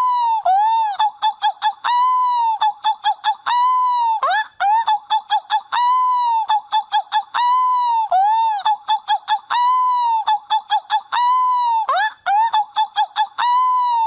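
Seagull call, repeated over and over: a long drawn-out squawk followed by a quick run of short yelps, the pattern coming round about every two seconds.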